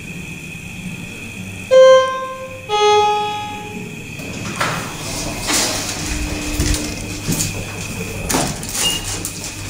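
1989 KONE traction elevator's hall chime sounding its arrival signal: two tones, the second lower, about a second apart, each ringing out. The car doors then slide open with a rumble and some knocks.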